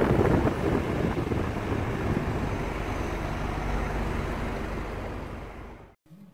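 Wind rushing over the microphone with road noise from a moving car, a steady rumble that fades out about five and a half seconds in.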